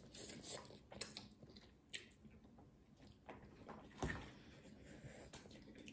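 Faint sounds of eating instant noodles: slurping, chewing and lip smacks, with scattered short clicks and a louder short knock about four seconds in.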